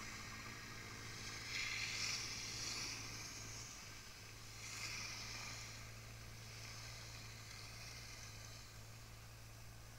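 Skis hissing and scraping over groomed snow, in swooshes about two seconds in and again around five seconds, over a steady low engine hum from a piste groomer working the slope ahead.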